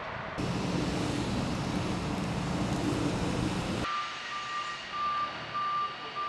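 A vehicle engine running steadily with a low hum for about three and a half seconds. It cuts off abruptly and is followed by a backup alarm beeping at an even pace, about one to two high beeps a second.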